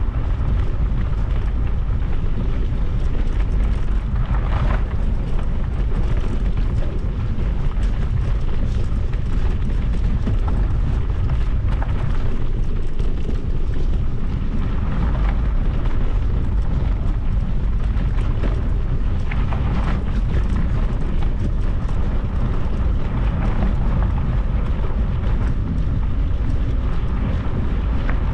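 Steady, loud low rumble of wind buffeting the microphone, with a few faint brief swishes higher up now and then.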